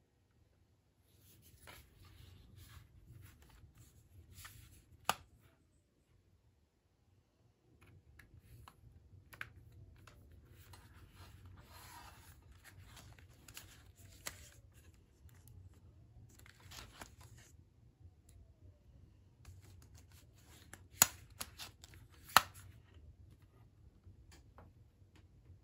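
Hands handling a desk lamp's USB cable and small plastic and metal gadgets: faint rustling and scraping with a few sharp plastic clicks, the two loudest close together near the end.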